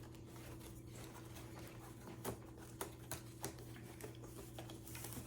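Cardboard parts of a flat-pack cat scratcher being handled and unpacked: a few faint, scattered taps and clicks, mostly in the second half, over a steady low hum.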